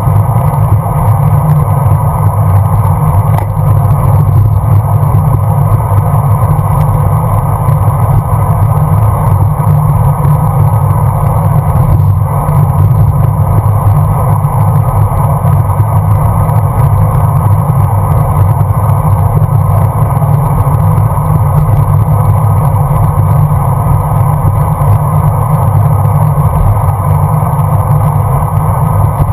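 Steady wind rumble and road noise picked up by a GoPro mounted on a road bicycle riding at speed, a constant low roar with no distinct events.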